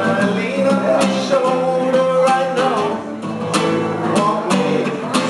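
Acoustic guitar playing: picked notes and strummed chords in a steady rhythm.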